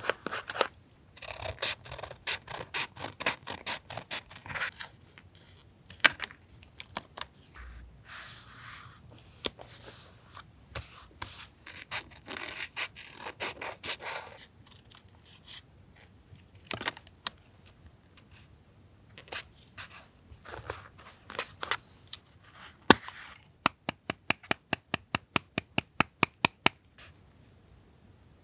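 Paper being handled for a journal collage: rubbing and scraping of paper, scattered sharp clicks, and near the end a quick even run of about fifteen clicks.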